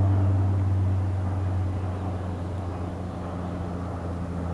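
Steady low machine hum, like an idling motor, holding one pitch and easing slightly in level.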